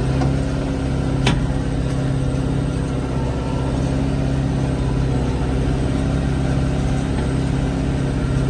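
John Deere tractor engine running steadily under load in first gear, pulling a round baler whose MegaWide pickup is feeding in thick clumps of hay. A single sharp click about a second in.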